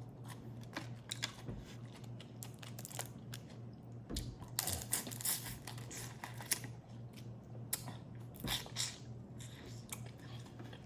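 Crawfish boil being eaten by hand, close to the microphone: shells crackling and tearing as they are cracked and peeled, with chewing and sucking, and louder bursts about four to five seconds in and again near eight and a half seconds. A faint steady low hum runs underneath.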